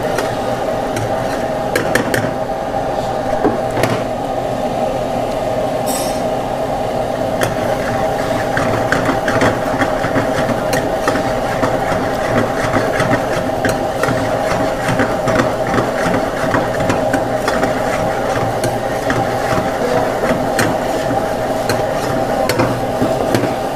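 Stirring and scraping a spiced vegetable-and-paneer biryani masala in a cooking pot: a steady run of small scrapes and clicks, busier after the first few seconds, over a steady kitchen hum.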